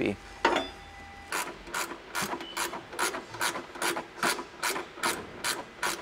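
Ratchet wrench clicking in quick, even strokes, about two or three a second starting a little over a second in, as it runs in the single bolt that holds the fuse box bracket in its threaded hole.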